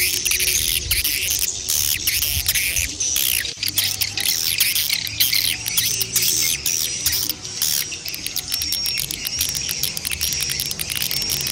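Swiftlets chirping and twittering in a dense, unbroken chorus of high calls, adult and chick calls together, the kind of call used to draw swiftlets into a nesting house. Past the middle, a clear high whistled note repeats about once a second.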